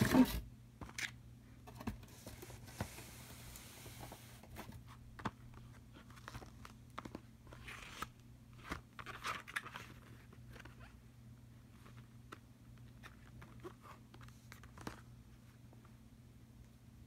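Cardboard and paperboard boxes being handled: a louder scrape and knock right at the start as the shipping box is moved, then scattered faint taps, scrapes and short rustles as a paperboard box is turned over in the hand.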